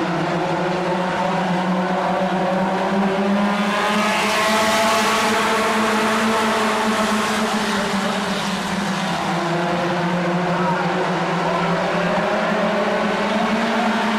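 A pack of stock-car racing engines running hard, many engine notes overlapping and rising and falling as the cars go round the oval. The sound swells louder and brighter about four to six seconds in.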